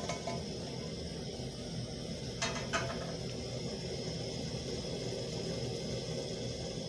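Pan of boiled milk on a gas stove as fried omena is tipped in and stirred: a steady low hiss, with two light utensil knocks on the pan about two and a half seconds in.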